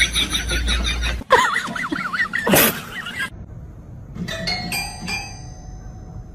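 A cat pressing the keys of a toy piano: about five single notes struck in quick succession, each ringing on and fading. Before that, in the first three seconds, there is background music and a voice-like sound whose pitch wavers, and it is the loudest part.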